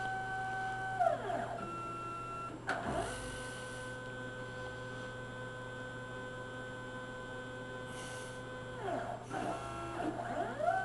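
Stepper motors on a Harbor Freight 9x20 lathe converted to CNC, whining at a steady pitch that glides down and back up as the axes change speed. There is a click about three seconds in.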